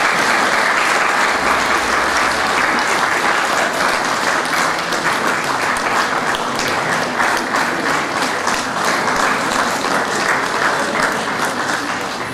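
Audience applauding steadily, tapering off slightly near the end.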